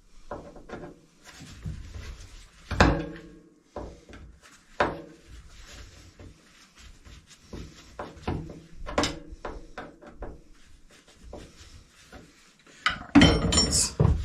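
Hand screwdriver being worked on stubborn screws fixing a galley sink in place: scattered clicks, scrapes and knocks, with single louder knocks and a burst of clatter near the end.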